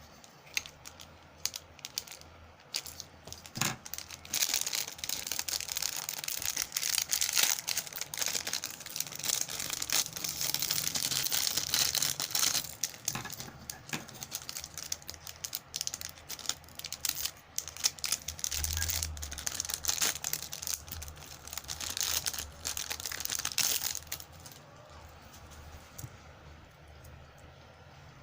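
Packaging being crinkled, rustled and torn open while fishing lures are unboxed: a few scattered crackles at first, then dense crinkling for about twenty seconds, dying away near the end.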